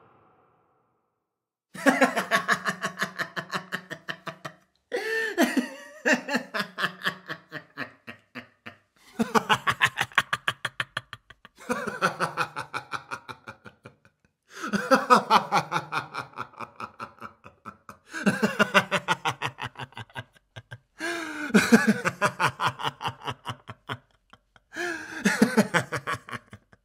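A man laughing in a run of separate laughs, each a quick string of "ha" pulses falling in pitch. There are about eight laughs, parted by short silences.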